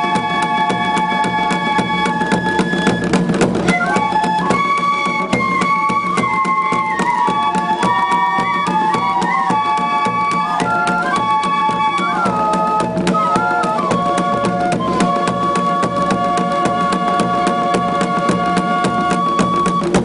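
A suling tambur band: several side-blown bamboo flutes playing a stepping melody together over steady, rapid drum beats.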